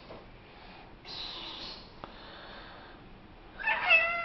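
Domestic tabby cat meowing once near the end: a single drawn-out meow that falls slightly in pitch, asking to be let out the door.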